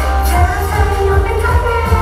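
Upbeat idol-pop song played loud through a stage PA, female voices singing over a steady kick-drum beat.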